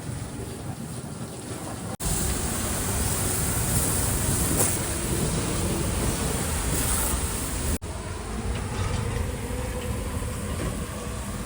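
Water spraying from a washing hose onto the body of a Tata Hitachi EX 200 excavator, a steady hiss. It turns suddenly louder and brighter about two seconds in, and drops back suddenly near eight seconds.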